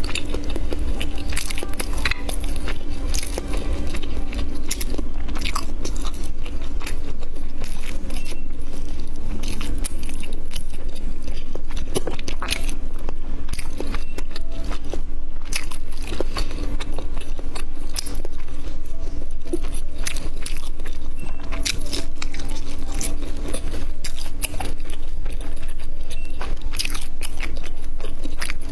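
Biting into and chewing grilled sausages, with repeated sharp crunches and wet clicks throughout, over a steady low hum.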